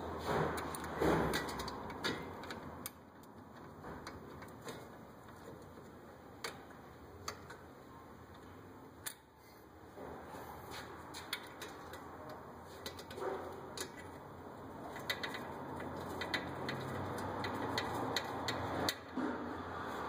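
Irregular light clicks and taps of hand tools and metal parts being handled at a car's front wheel hub, some in quick clusters, over a low steady hum.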